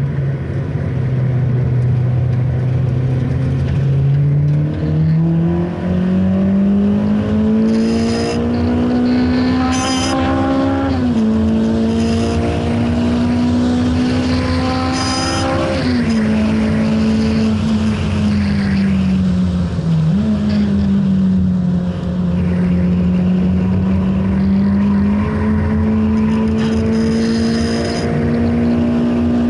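Honda Integra DC5's four-cylinder engine under hard acceleration on track, heard from inside the cabin. It pulls up through the revs in long rising sweeps, with a sharp drop in pitch at the upshifts about eleven and sixteen seconds in and a brief dip near twenty seconds. It climbs again and eases off near the end.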